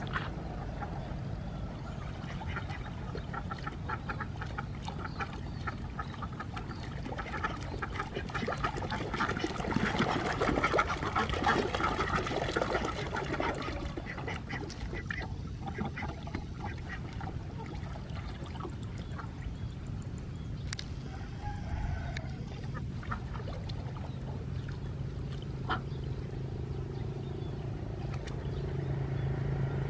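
A flock of domestic ducks quacking as they swim, with many overlapping calls, busiest about ten seconds in.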